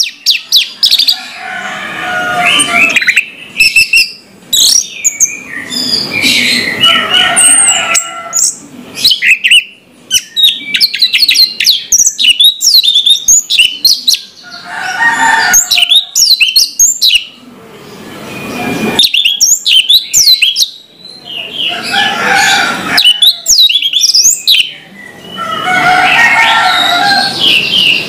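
Orange-headed thrush (anis merah) singing loudly: a fast, varied song of quick chirps and whistled notes in phrases of a few seconds, broken by short pauses.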